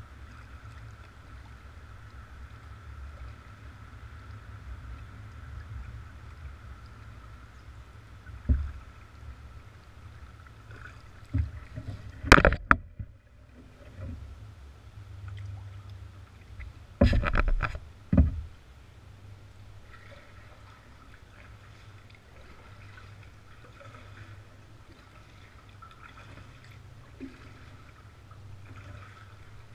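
A kayak being paddled, with a steady low rumble of water and air around the hull. It is broken by a handful of sharp knocks of the paddle against the plastic hull, spread over the middle of the stretch, the loudest about twelve seconds in and a tight cluster around seventeen to eighteen seconds.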